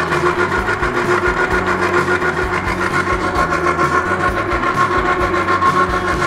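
Electric slow juicer (estrattore) running with a steady motor whine while fruit is pressed into its feed chute.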